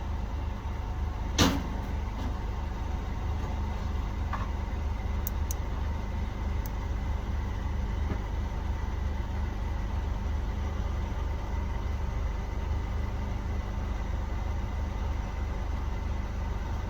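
Car engine running steadily, heard from inside the car as a low, even rumble, with a sharp click about a second and a half in.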